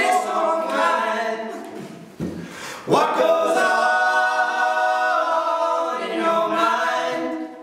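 A group of male voices singing held notes in close harmony. After a short break about two seconds in, they land on a new sustained chord, which fades out at the end.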